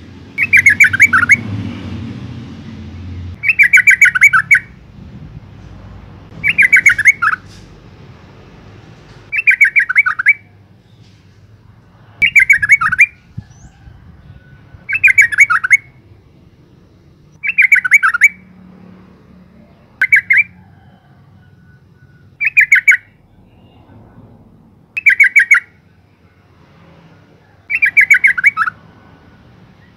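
Female yellow-vented bulbul calling: a loud, quick chattering phrase about a second long, repeated about eleven times at regular gaps of roughly two and a half to three seconds.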